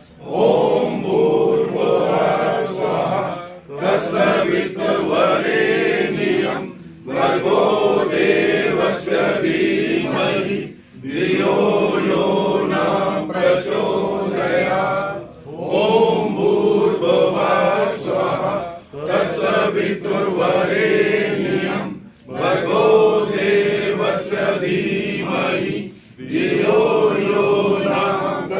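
Voices chanting Hindu mantras in phrases of about three to four seconds, each followed by a short pause.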